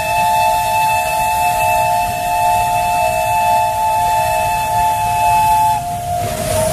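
Narrow-gauge steam locomotive whistles blowing long and steady: two tones sound together until the higher one stops about six seconds in, and the lower one carries on. A low rumble of the moving locomotive runs underneath.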